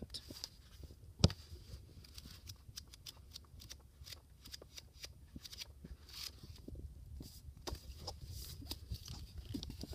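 Pages of a paperback light novel being flipped through by hand, a run of quick soft rustles and flicks, with one sharper tap about a second in.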